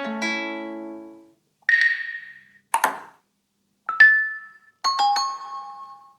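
Huawei P50 Pro ringtones and alert tones previewed one after another: five short sounds, a bell-like chime, a brief swish, a short hit, then two more chimes, each fading out before the next starts.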